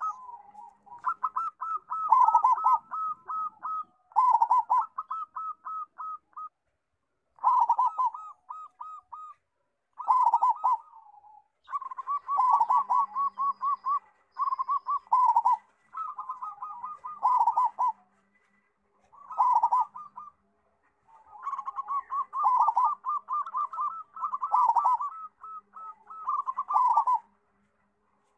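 Zebra dove (perkutut) singing its staccato cooing song. The phrases are quick runs of short coos, repeated about eleven times with brief pauses between them.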